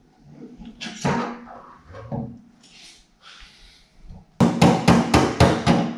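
Rapid metal-on-metal tapping at the steel fuel tank's sending-unit opening: sharp ringing strikes, about four a second, starting a little past four seconds in. It is the lock ring being knocked round to seat the fuel sending unit.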